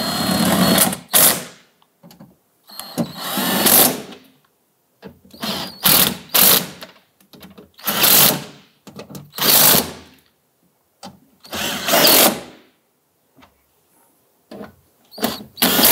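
Cordless impact driver running in a series of short bursts, with pauses between, as it drives home the bolts and nuts holding a power window regulator and motor inside a car door.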